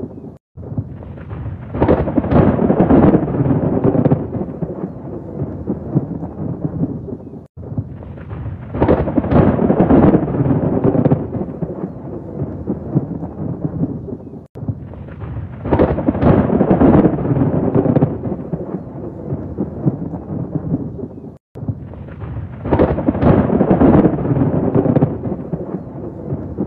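Thunder rolling in long, heavy rumbles, four alike swells about seven seconds apart, each broken from the next by a brief sudden dropout.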